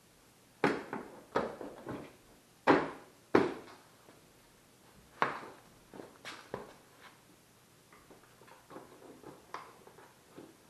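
Seat and plastic side panels of a Kawasaki KLR250 dirt bike being handled and fitted: a run of sharp knocks and clunks, the loudest in the first four seconds, then lighter clicks and taps.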